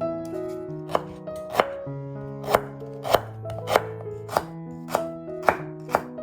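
Knife chopping food on a cutting board, about nine sharp, even strokes a little over half a second apart, starting about a second in, over background piano music.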